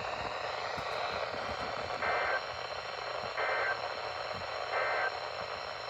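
Emergency Alert System SAME header data bursts from a NOAA Weather Radio broadcast: three short buzzy electronic bursts, about 1.4 seconds apart, over steady radio static hiss. They are the coded header that opens an emergency alert.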